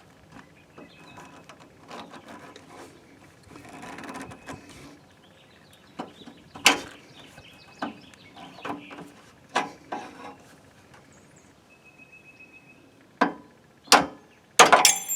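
A screwdriver working a front attachment pin out of a Craftsman mower deck: scattered metal clicks and scrapes, with a few sharp knocks near the end as the pin comes free.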